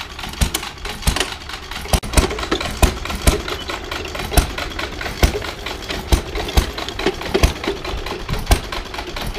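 Small three-quarter-horsepower stationary gas engine running and belt-driving a miniature hay baler, with sharp knocks about two to three times a second.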